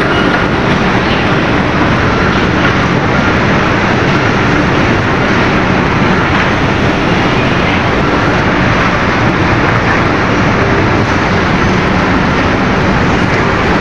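Loud, steady mechanical roar of cement plant machinery, with a faint hum running through it.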